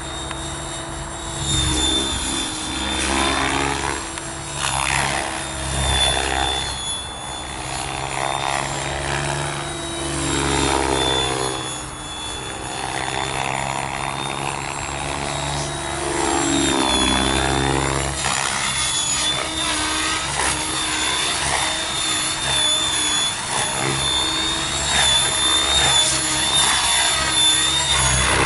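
Mikado Logo 600 SE electric RC helicopter in flight: a steady high whine from the motor and drive over the rotor noise, which swells and fades in loudness as the helicopter banks and passes.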